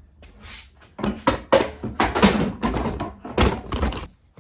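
Metal motorcycle fork parts being handled and knocked together: a run of clinks, taps and dull thunks that starts about a second in, the loudest knock near the end.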